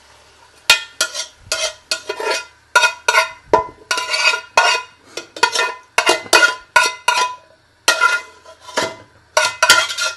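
A metal spoon scraping and knocking against a steel cooking pot and a chopping board as chopped vegetables are scraped into the pot. It is a quick, uneven run of sharp strokes, roughly two a second, each with a short metallic ring, with a brief pause about eight seconds in.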